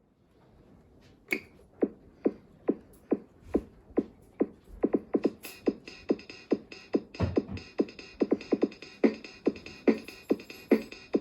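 Seiko AC608L melody alarm clock going off with its first built-in electronic beat sound. A drum-machine beat of about two strikes a second starts about a second in, and a synth melody joins about halfway through.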